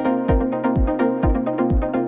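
Electronic background music with a deep kick drum on a steady beat, about two hits a second, under held synth chords.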